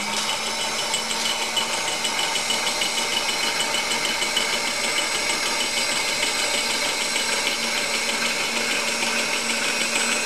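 Bridgeport milling machine's power drive running steadily as the table is lowered away from the cutter: an even motor hum with a fast, fine ticking over it.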